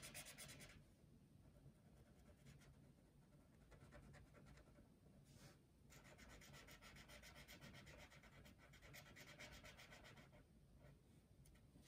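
Brush pen tip rubbing across paper in quick back-and-forth colouring strokes, faint. The strokes thin out to a few short ones after the first second, then run dense and fast from about six seconds in until near the end.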